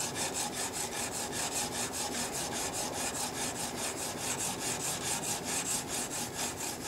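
A steel blade held in a honing jig is stroked rapidly back and forth on a diamond sharpening plate. It makes an even, rhythmic rasping scrape at about four to five strokes a second as the bevel is ground.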